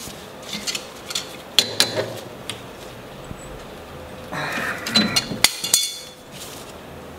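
Hand tools clinking against metal as the steering clevis bolt is snugged up with a wrench: scattered clicks and knocks, then a busier stretch of metallic clattering a little past halfway.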